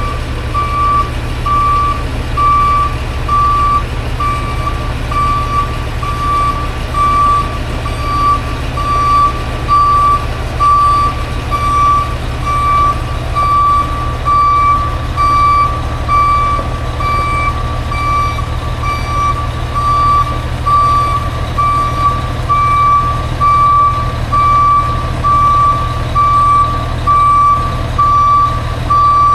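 Backup alarm beeping: an even, unbroken run of single-pitch beeps over the steady low rumble of a diesel engine as a 2000 Mack RB dump truck reverses slowly.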